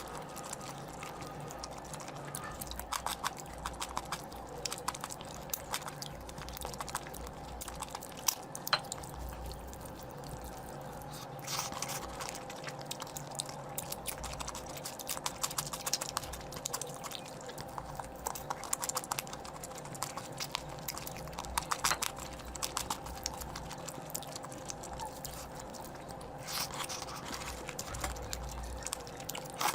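A person eating curry close to the microphone: scattered chewing, lip-smacking and wet clicks, with denser bursts of eating noise at a few points, over a faint steady hum.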